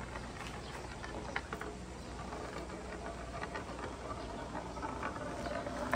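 Large glass flower marble rolling along a wooden wave track, running over the carved dips with a soft rolling rumble and scattered light clicks.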